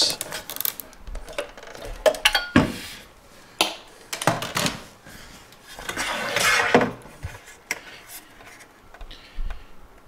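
A security-camera DVR being handled on a wooden workbench: its plastic lid is set down and the open sheet-metal chassis is tilted and turned. This gives a string of separate knocks, clicks and clatters, with a longer scrape a little past halfway.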